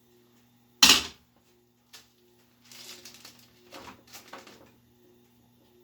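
Kitchen handling sounds: a loud sharp knock, like a dish or pan set down on the counter, about a second in, then a small click and a stretch of scraping and rustling.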